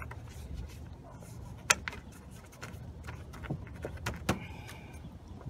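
A few sharp clicks and knocks from hand work on the vehicle, the loudest about a second and a half in and another near the end, over a low steady hum.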